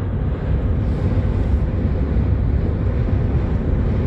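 Steady, loud low rumble of a car driving at speed in strong wind: road noise mixed with wind noise.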